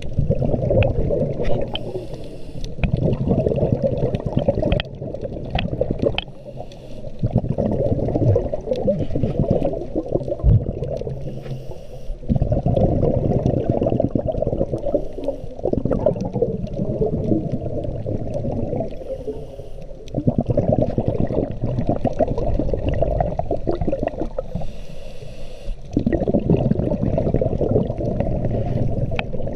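A scuba diver breathing through a regulator underwater: a loud gurgling rumble of exhaled bubbles every five or six seconds, with a fainter hiss of each breath drawn in between.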